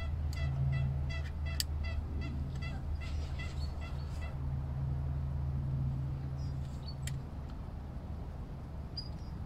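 Waterfowl calling in a fast, even series of short honking calls, about four a second, that stops about four seconds in. A steady low hum runs underneath.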